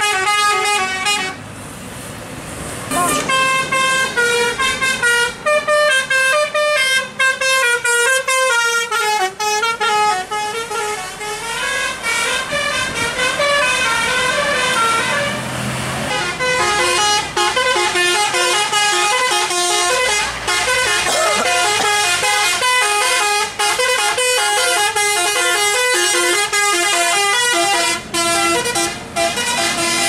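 Roof-mounted Basuri telolet horns on tour buses, playing fast multi-note melodies that step quickly up and down in pitch, with a brief break about two seconds in.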